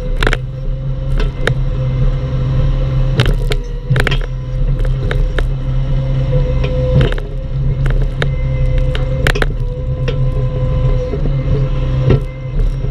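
Bobcat E10 mini excavator's diesel engine running steadily under working load, with a steady whine and irregular sharp knocks and clanks as it digs out a palm stump.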